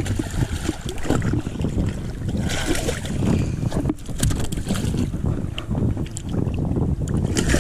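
Wind buffeting the microphone in a steady low rumble, with water splashing from a small snook thrashing at the surface as it is grabbed at the side of the boat.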